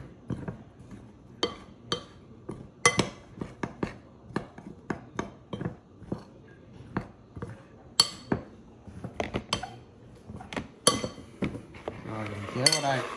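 Metal spoon clinking and scraping against a glass mixing bowl while stirring diced pieces coated in tapioca starch, in irregular sharp taps.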